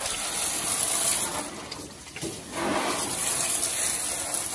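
Water from a garden hose spraying into a fire-damaged, still-steaming engine bay, a steady hiss that eases off briefly about two seconds in, as the last of an engine fire is doused.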